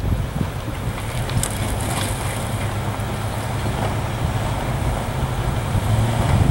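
Wind buffeting the microphone over a steady low engine hum from off-road vehicles working slowly up a rocky trail.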